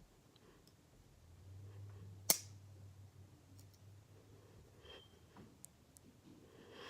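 A single sharp metallic click about two seconds in, from handling the folding multi-tool with its knife blade out, amid a few faint small ticks.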